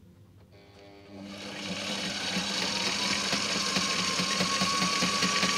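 Sailrite Ultrafeed walking-foot sewing machine starting about a second in, picking up speed and then stitching steadily, its needle beating a fast even rhythm over a motor whine that rises slightly in pitch, sewing a full-width, full-length zigzag.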